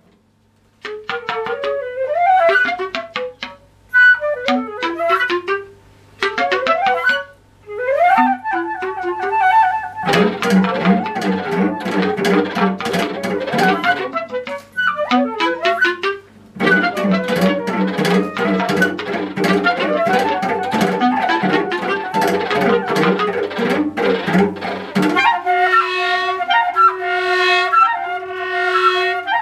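Instrumental music: short melodic phrases separated by brief pauses, then a fuller layered passage from about ten seconds in, ending in a repeated pulsing chord figure.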